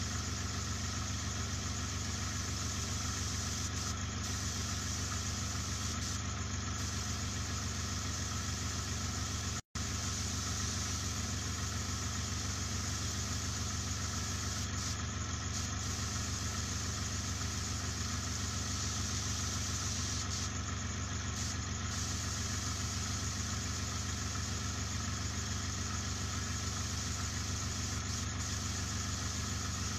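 Small airbrush air compressor running with a steady hum and an even hiss of air, cut off for a split second about ten seconds in.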